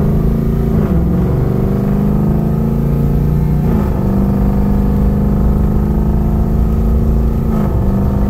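LS3 V8 pulling at light throttle, heard from inside the car. The engine note climbs and then drops in pitch about a second in and again near four seconds as the 6L80 six-speed automatic makes crisp upshifts. A smaller dip near the end comes as the torque converter locks up.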